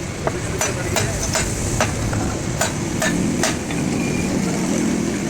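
Hammer striking metal parts during truck gearbox repair work: about eight sharp, ringing taps at an uneven pace over the first three and a half seconds, over a steady low rumble.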